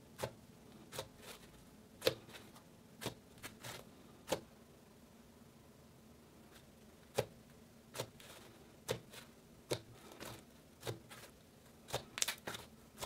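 Cloud cream slime, a glue-and-lotion slime with snow powder mixed in, being squished, stretched and folded by hand: scattered soft pops and crackles at irregular intervals, a quieter stretch in the middle and a quick cluster of pops near the end.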